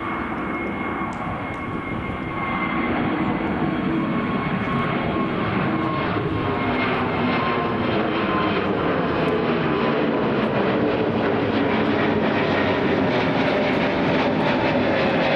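Airbus A320neo's Pratt & Whitney geared-turbofan engines at climb thrust after takeoff: a steady jet rumble with a high whine, growing louder as the airliner climbs toward overhead.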